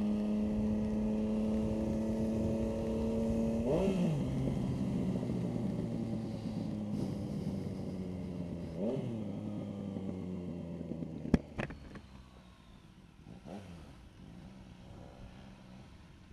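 Motorcycle engine running steadily, then slowing down. Its note drops lower in steps, with three brief throttle blips. There is a sharp click a little past eleven seconds.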